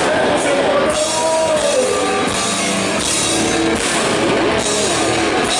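Heavy metal band playing live: loud distorted guitars, drums and cymbals, with a voice singing over them.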